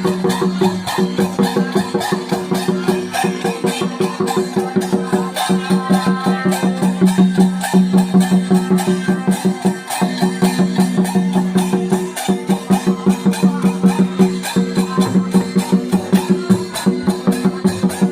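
Santhal folk dance music: fast, even drumbeats over a steady droning tone.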